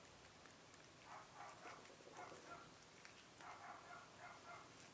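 Faint sounds of a cat gnawing an ear of corn: soft chewing clicks and short, repeated small vocal sounds from the cat, three or four times.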